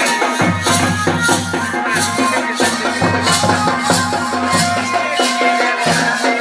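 Pahari folk music for a tandi song and dance, with pitched melody lines over percussion keeping a steady beat.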